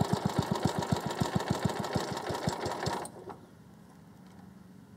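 Small single-cylinder lawnmower engine idling in a fast, even pulse with its idle mixture screw turned 2.5 turns in, leaned out, then cutting out abruptly about three seconds in.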